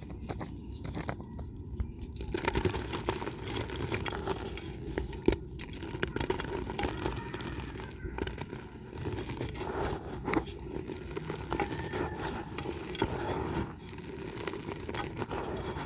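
Dry dirt chunks being crumbled and broken by hand: a dense, irregular crackling with many small sharp cracks and snaps.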